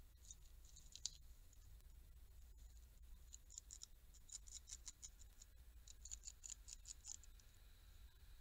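Eurasian beaver gnawing wood at a tree trunk: faint bunches of quick, scratchy bites, a short run about a second in and two longer runs through the middle, over a low steady hum.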